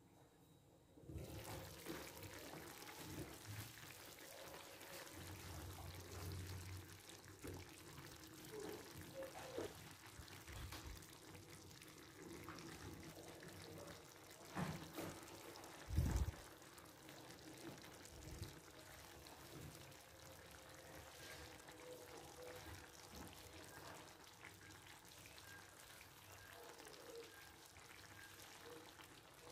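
Food sizzling in a frying pan, a faint steady crackle, with a couple of sharp knocks about halfway through.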